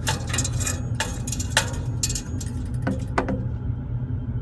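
Metal clinks and light scraping as a gas heater's burner assembly is set down into its seat, in clusters near the start, around a second in and around three seconds in, over a steady low hum.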